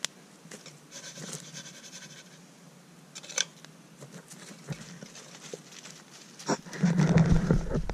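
Sharp snaps from a wood campfire, with butter-fried mushrooms and onions sizzling quietly in a pan over it. Near the end a Pomeranian pushes right up against the microphone, and its fur rubbing and bumping the mic is the loudest sound.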